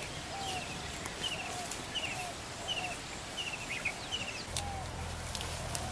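Birds calling over and over in the bush: a short, high chirp about every three-quarters of a second, each followed by a lower downward note. A low steady hum comes in near the end, along with a few sharp clicks.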